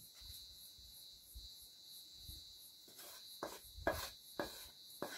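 A wooden spoon scraping and knocking food out of a metal pan onto a plate: faint for the first three seconds, then several soft knocks and scrapes. A faint steady high hiss lies underneath.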